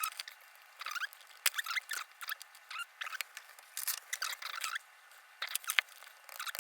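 Small, irregular metallic clicks and scrapes from an Asec Vital euro cylinder lock and the tools working it, just after it has been picked open.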